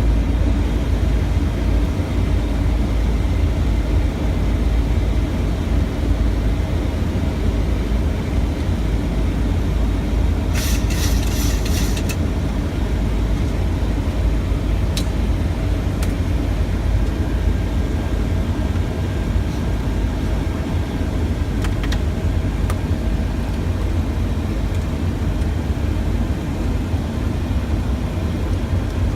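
Steady low rumble of airflow and engine noise inside a Boeing 737 cockpit in flight. A brief crackling burst comes about ten seconds in, followed by a few faint clicks.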